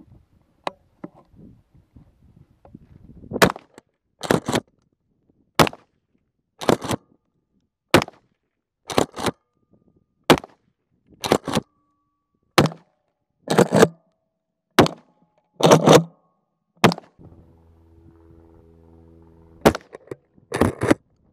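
A Remington 870 12-gauge pump shotgun firing slugs, about eight shots at a steady pace of roughly one every two seconds, starting a few seconds in. About a second after each shot comes the quick double clack of the pump action being racked.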